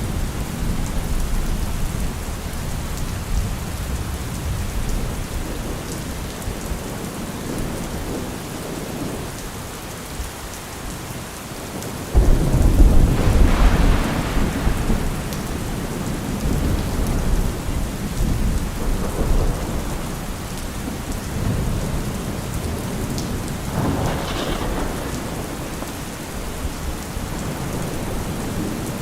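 Steady rain with thunder rumbling. A loud thunder peal comes in suddenly about twelve seconds in and rolls on for a few seconds, and a softer roll follows later.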